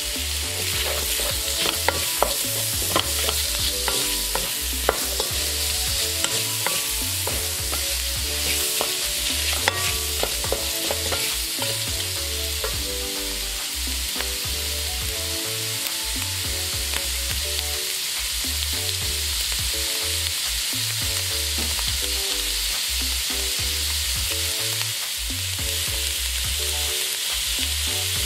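Onions and peppers sizzling as they stir-fry in a nonstick wok, with a wooden spatula scraping and knocking against the pan. The knocks are most frequent in the first ten seconds.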